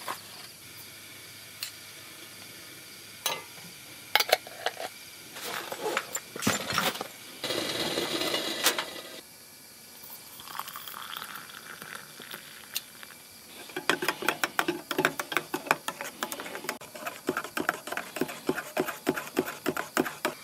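Hot water poured from a stainless kettle into a steel camping mug, rising in pitch as the mug fills. Then a wooden stirrer stirs quickly in the mug, ticking rapidly against the steel sides for the last third.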